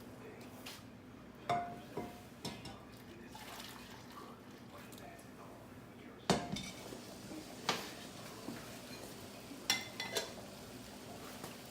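Kitchenware being handled: a scatter of separate clinks and knocks, about seven in all, as the pot, glass bowl and plate are moved. Some clinks ring briefly, and the loudest knock comes about halfway through.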